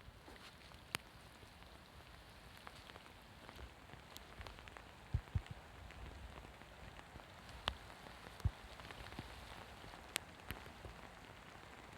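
Steady, fairly faint rain, with scattered louder drops striking close by.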